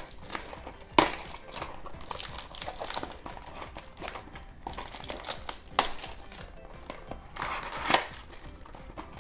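Clear plastic shrink-wrap crinkling and tearing as it is peeled off a small cardboard toy box, with sharp snaps about a second in and twice more later. The box's cardboard flap is pried open near the end.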